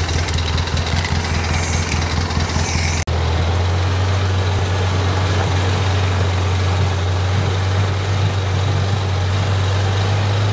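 Side-by-side utility vehicle engine running with a steady low drone. A brief dropout comes about three seconds in, after which the drone carries on evenly.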